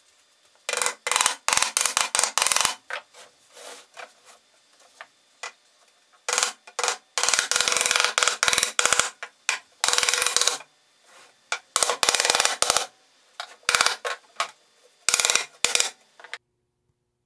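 Hand sanding along the edges of a birch plywood cabinet: quick back-and-forth strokes in several runs, from under a second to a few seconds long, with pauses between. The sound cuts off suddenly near the end.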